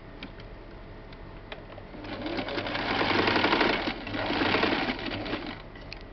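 Small electric domestic sewing machine running a short tack stitch, in two quick runs with a brief pause between, to hold the elastic end inside a fabric headband. A few light clicks of handling come before the stitching starts.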